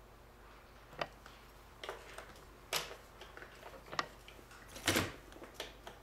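Irregular light clicks and taps of small hand tools, tweezers and a soldering pencil, being handled and set down on a workbench: about eight sharp ticks, the loudest a double knock near the end.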